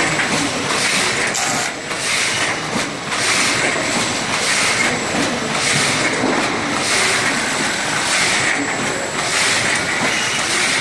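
Automatic flatbed die cutting machine running at production speed, cutting and delivering corrugated board sheets: a steady loud mechanical clatter with a hissing beat repeating about one and a half times a second, one beat per machine cycle.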